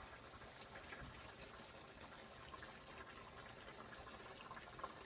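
Faint, steady bubbling of a coconut-milk chicken curry simmering in a pot, with many small scattered pops.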